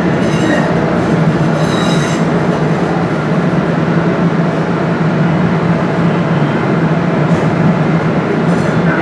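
DART light rail train running, heard from inside the car: a steady rumble with a low motor hum, and a high wheel squeal that comes and goes in the first two seconds.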